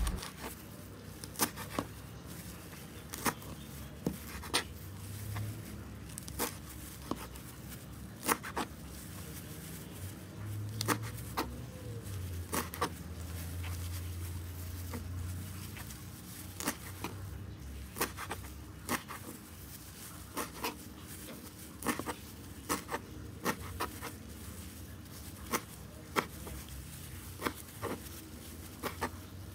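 Kitchen knife chopping daun selom (water dropwort) stalks on a plastic cutting board: irregular sharp knocks of the blade on the board, one or two a second, sometimes in quick pairs. A low hum underneath swells for a few seconds midway.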